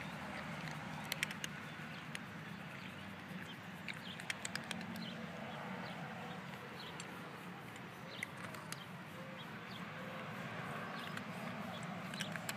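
Cat crunching dry kibble: scattered sharp crunches in small clusters, about a second in, around four seconds in and again around eight seconds in, over a steady low hum.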